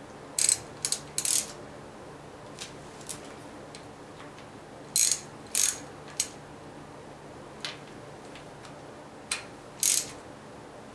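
A wrench being worked on the gib adjustment nuts of a surface grinder's table, making short, sharp metallic clicks and scrapes in three small groups.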